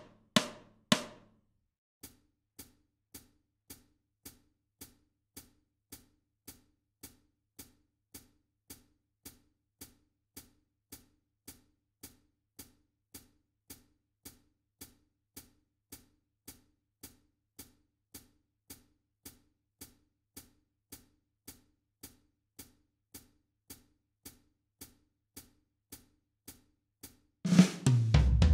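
Programmed GarageBand 'SoCal' drum kit: three loud hits at the start, then a long steady pulse of faint light drum clicks, about two a second. About a second before the end the full kit comes in loudly with a cymbal crash and bass drum.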